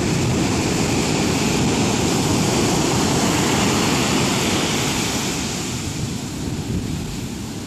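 Heavy surf breaking and washing up the beach in a dense, steady roar that eases slightly near the end, with wind buffeting the microphone.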